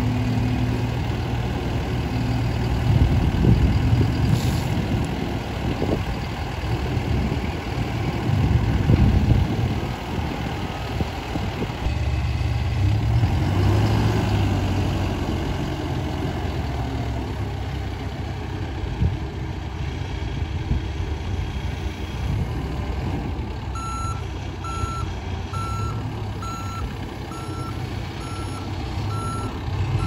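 John Deere 310K backhoe loader's diesel engine running, its level swelling and easing in the first half. About two thirds of the way in, the machine's reversing alarm starts beeping steadily, about once a second.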